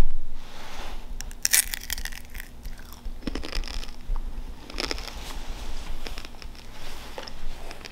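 Freeze-dried caramel M&M's candy crunched and chewed close to the microphone: a dense run of crackly crunches about a second and a half in, then scattered single crunches.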